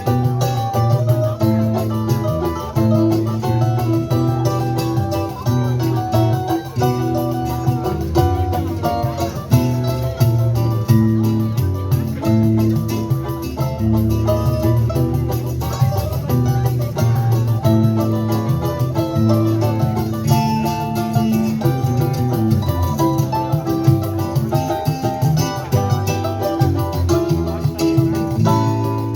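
A choro ensemble playing an instrumental piece: plucked string instruments carry a quick melody over a moving bass line.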